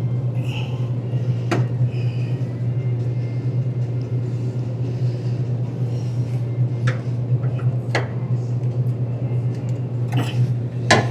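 Occasional sharp clicks and knocks of tools and parts being handled during work on a car's wiring, over a steady low hum.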